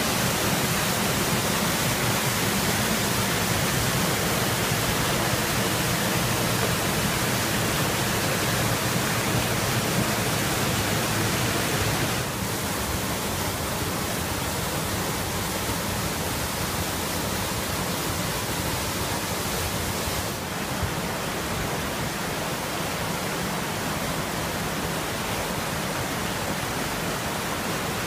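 Waterfall and rushing creek water: a steady, even rush of falling and tumbling water, dropping a little in level about twelve and twenty seconds in.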